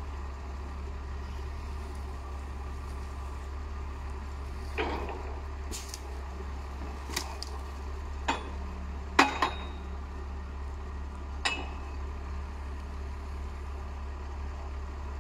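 Valtra 8550 tractor's diesel engine running steadily to power a Kronos forestry crane loading branches. Over it come about half a dozen sharp knocks and clanks from the crane and grapple, the loudest a quick double clank about nine seconds in.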